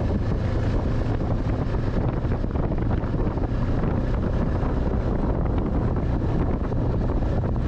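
Snowmobile engine running steadily as the machine travels along a snowy road, with wind buffeting the microphone.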